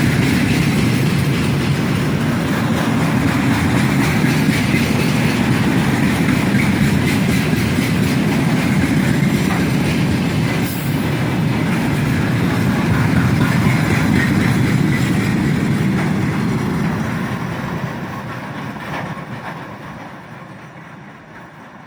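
Long freight train's wagons rolling past at speed, wheels clattering over the rail joints, then the noise fades steadily over the last few seconds as the train moves away.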